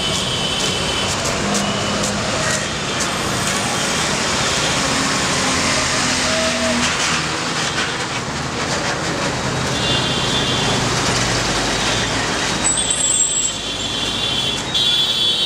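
Busy street traffic with buses, cars and auto-rickshaws passing. Short high horn tones sound several times, mostly in the second half.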